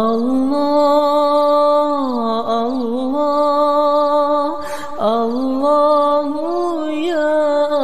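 A single voice chanting dhikr in long, drawn-out notes that bend and turn in pitch, with short breaks about two and a half and five seconds in.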